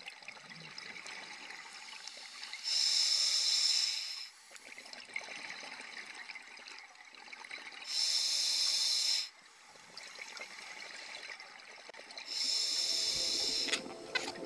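A scuba diver breathing underwater through a regulator. Three hissing inhalations, each about a second and a half long, come roughly five seconds apart, with quieter bubbling exhalations between them.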